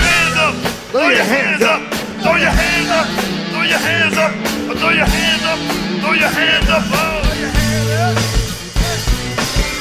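Live funk band playing: electric bass and drum kit under melodic lines from the singers and horn section.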